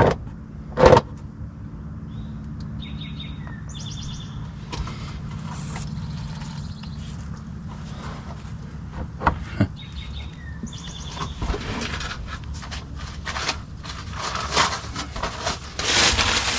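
Birds chirping in two short runs of repeated high notes, over scattered sharp clicks and knocks of hand tools at work under a pickup truck, which grow busier with scraping near the end.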